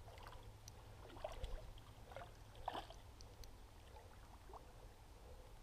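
Faint running water of a small stream over a low rumble, with a few soft, short splashes and clicks about a second in and again near three seconds.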